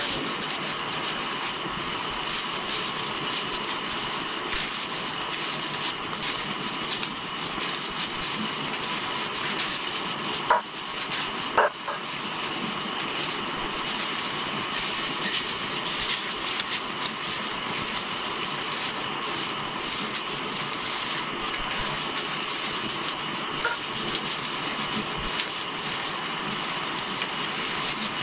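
Artificial Christmas tree branches rustling and crackling as they are handled and spread, over a steady hiss, with two sharper clicks about ten and eleven and a half seconds in.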